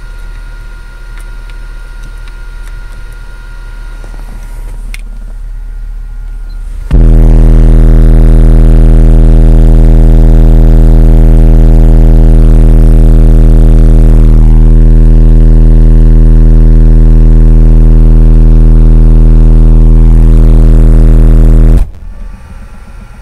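A 40 Hz test tone played very loud through Brutus 15-inch car subwoofers on a Boss monoblock amplifier with the bass EQ boosted. It comes in suddenly about seven seconds in as one steady low drone full of overtones, heavily distorted, holds for about fifteen seconds and cuts off abruptly near the end. Before it there is a quieter low hum.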